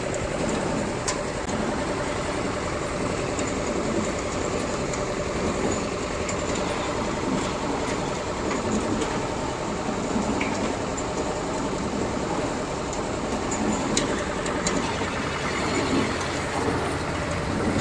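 Drum-type ginger washing machine running: a steady mechanical hum with water spraying inside the drum, and scattered small knocks of ginger tumbling and dropping out of the chute.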